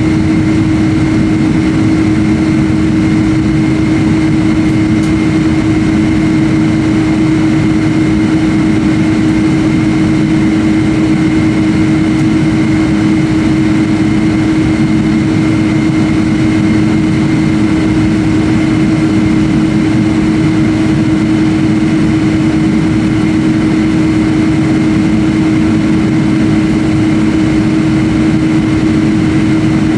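Jet airliner cabin noise heard from a window seat: a steady engine drone with a constant low hum and a fainter high whine, unchanging throughout.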